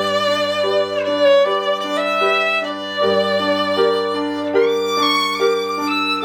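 Violin and piano duet playing a slow, lyrical melody: the violin sings held notes with vibrato over steady piano chords and bass notes.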